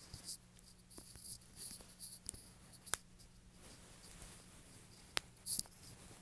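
Quiet, close-miked ASMR sounds: short soft hissing swishes, with a few sharp clicks, the loudest about three seconds in and again just after five seconds.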